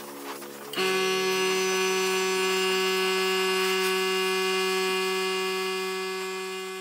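A steady electric hum at one constant pitch, starting suddenly about a second in and slowly fading toward the end.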